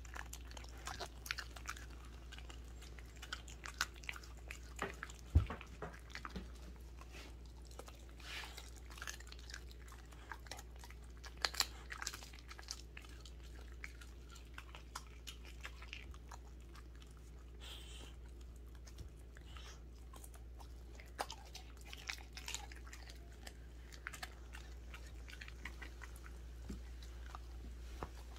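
A Welsh corgi chewing and gnawing on a whole raw chicken: irregular wet smacks, bites and crunches, with one sharp thump about five seconds in.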